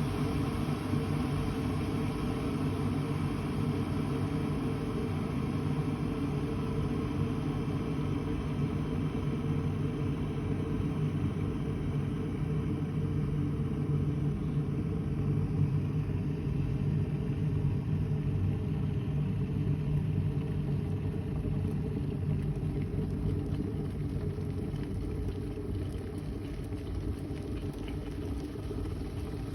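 Kitfort KT-6121-1 electric kettle heating water toward the boil: a steady rumbling noise of the water churning, easing a little near the end as it comes to the boil.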